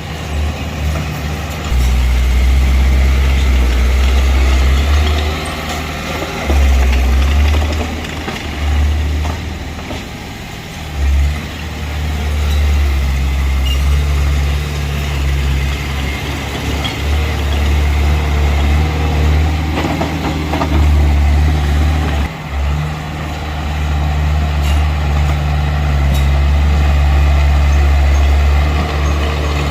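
Diesel engine of a Mitsubishi BD2F bulldozer working, a loud low drone that swells and drops repeatedly as the machine pushes soil.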